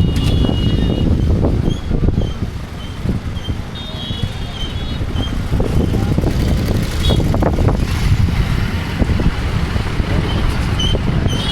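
Steady low rumble of road vehicles with wind buffeting the microphone, and scattered short high chirps over it.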